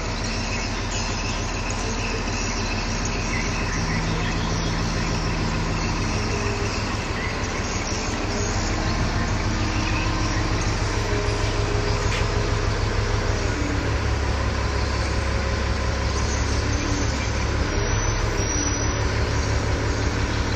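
Diesel engine of a Kato mobile crane running steadily with an even low pulse, getting a little louder about nine seconds in.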